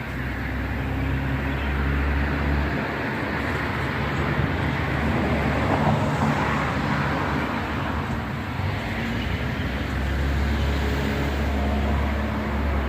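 Continuous outdoor rumble like road traffic, swelling in the middle, with a low hum in the first few seconds and again near the end.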